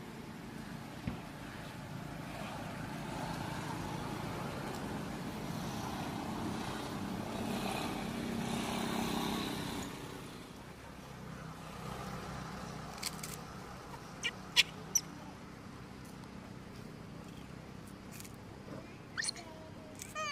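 A motor vehicle passing, its sound building to a peak about nine seconds in and then fading. Later come a few sharp clicks and, near the end, a couple of short high calls.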